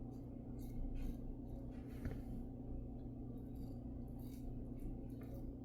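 Antica Barberia Titan safety razor scraping through lather and stubble in faint, short strokes, several over a few seconds, over a steady low room hum.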